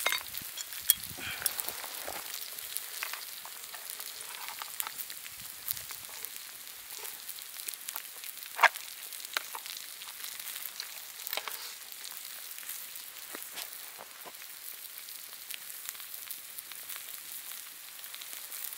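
Thick-cut bacon and king oyster mushrooms sizzling in a frying pan over a wood fire: a steady hiss with scattered sharp pops. One pop comes about a second in and a louder one near the middle.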